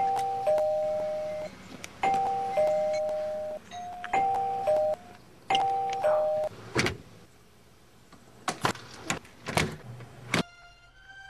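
Electric two-note doorbell chime ringing ding-dong four times in quick succession, a higher note followed by a longer lower one each time. Then a few sharp knocks.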